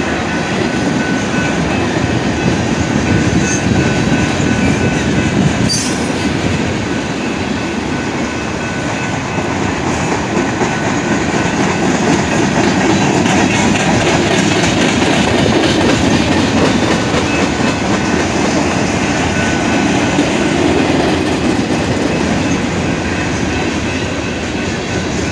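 Freight train cars rolling past close by: a steady loud rumble of steel wheels on rail, with continuous fine clatter and a faint thin high tone.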